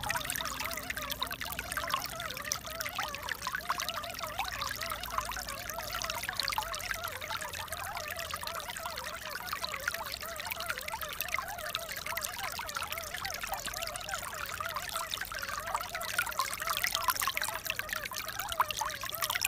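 Water pouring and trickling steadily, with a continuous bubbling gurgle.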